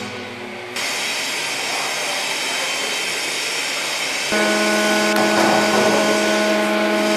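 Music fading out, then a steady noisy rumble; about four seconds in, a steady machine-like hum with several held tones starts abruptly and keeps going.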